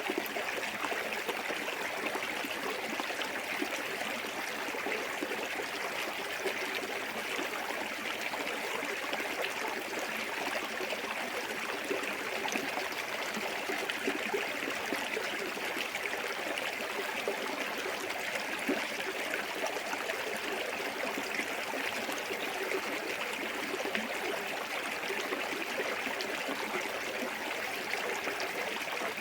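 Small waterfall on a clear woodland stream, water splashing and babbling steadily, with a bright hiss and fine irregular trickling detail.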